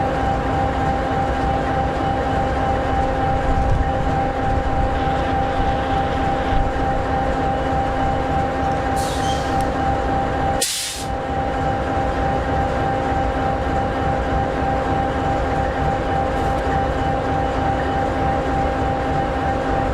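EMD 16-710G3B V16 two-stroke diesel of an SD60E locomotive idling steadily, a low rumble with a steady whine over it. Two short hisses about nine and eleven seconds in.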